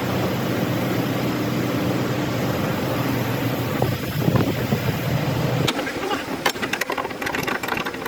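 A vehicle engine running steadily at idle, cutting off suddenly about two-thirds of the way through, followed by a quick rattle of sharp clicks and taps.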